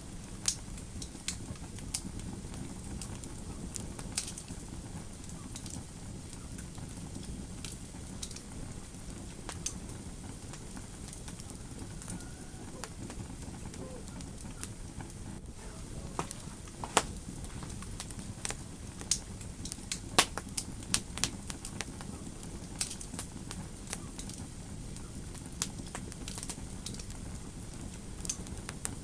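Fireplace fire crackling: a steady low rumble of flames with irregular sharp pops and snaps, a few louder pops coming a little past the middle.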